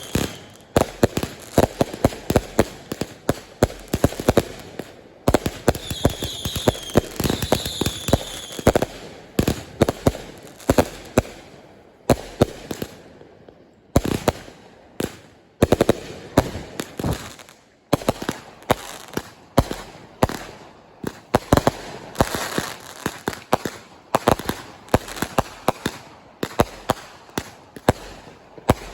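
Fireworks show: rapid volleys of firework bangs and crackling going off almost without break, thinning out briefly about twelve to fourteen seconds in. A few short high whistles sound about six to eight seconds in.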